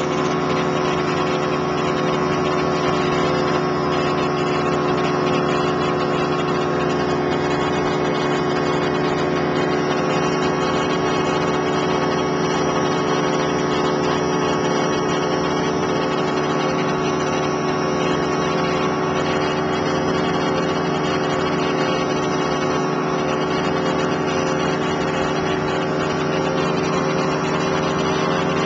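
A machine running with a steady, unchanging drone made of several held tones over a noisy hum.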